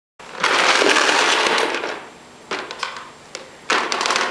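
A shower of small balls poured into a clear plastic tub, clattering loudly for about a second and a half, then a few separate clicks as the last balls drop and settle.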